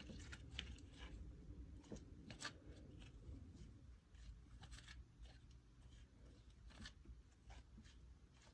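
Faint, irregular sticky clicks and crackles of slime being kneaded and stretched by hand as white clay slime is mixed into it.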